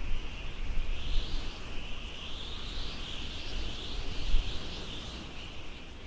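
Wind buffeting the microphone in a low, gusting rumble, with a louder gust about four seconds in. Behind it runs a steady, high-pitched shrill chorus of insects that swells and fades in slow waves.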